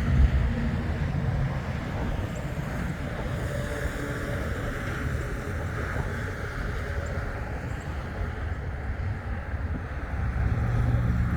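Steady road traffic noise with wind on the microphone; a vehicle gets louder near the end.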